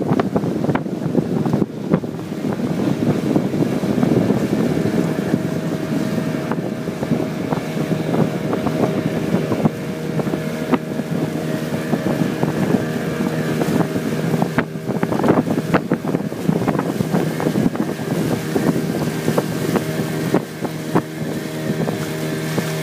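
Small outboard motor running at a steady speed, pushing a wooden fishing boat along, with wind buffeting the microphone in crackling gusts.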